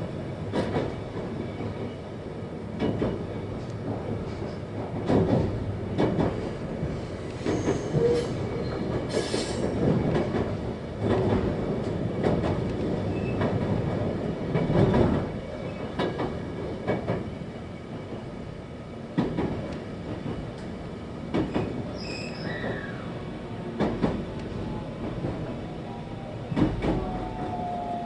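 Interior running noise of a 521-series electric multiple unit: a steady rumble of wheels on rail with irregular clacks and knocks. Near the end a falling electric motor whine sets in as the train slows for Higashi-Toyama station.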